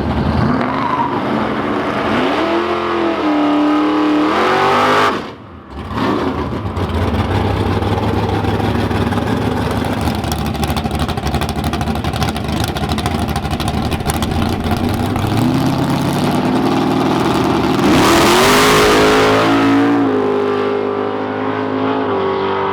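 Drag race car engines revving and accelerating hard, rising and falling in pitch. The sound cuts out sharply about five seconds in, followed by a long stretch of full-throttle engine noise and a loud surge near the end.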